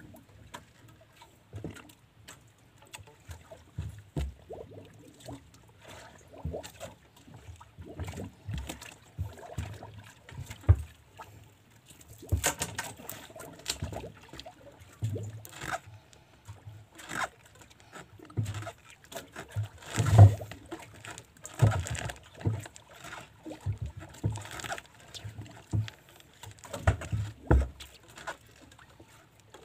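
Irregular knocks, bumps and clicks of a small wooden fishing boat rocking on the swell, with water splashing at the hull, while a handline is hauled in by hand. The loudest bump comes about two-thirds of the way through.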